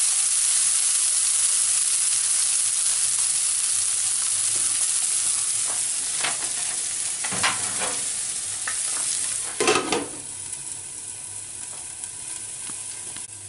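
Chopped onion and green peas frying in oil in a nonstick pan, a steady sizzle with spatula stirring at first. A few knocks come around six to eight seconds in, then a louder clatter near ten seconds as a glass lid goes on. After that the sizzle is quieter, muffled under the lid on a lowered flame.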